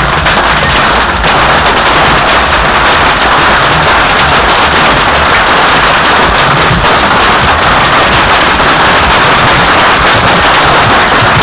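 Massed bottle rockets firing from a beehive rocket rack, a very loud, unbroken crackle of countless rapid launches and bangs.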